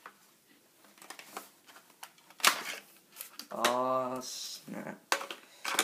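Clicks and knocks of an airsoft P90's plastic body being handled while trying to get the magazine out, with a sharper knock about two and a half seconds in. A short wordless hum or grunt from a person a little past the middle.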